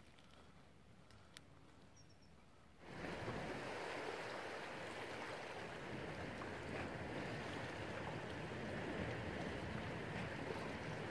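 After a quiet start with a single small click, a steady rushing of sea waves washing against a rocky shore begins suddenly about three seconds in and carries on evenly.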